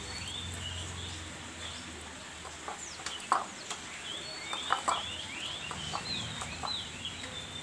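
Birds calling: many short, high, falling chirps, with a few sharper, louder calls about three seconds and five seconds in.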